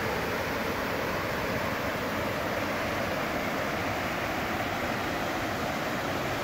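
Steady rush of a small waterfall and cascading creek, a constant even hiss with no breaks.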